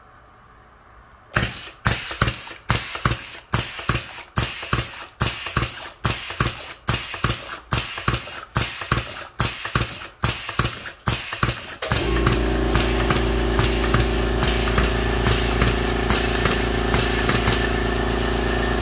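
Air-driven Tesla (Hibar) 2BR-FC20 dosing pump cycling on a dispensing test: a sharp clack with a short rush of air at each stroke, about two a second, after starting about a second in. About 12 s in, a loud steady hum sets in over the strokes.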